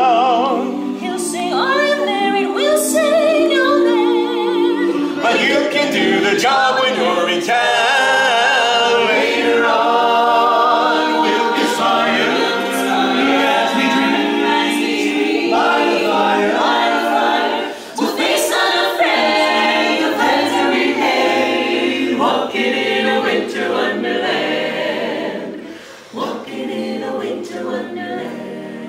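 Mixed choir of men's and women's voices singing a holiday song a cappella, getting quieter near the end.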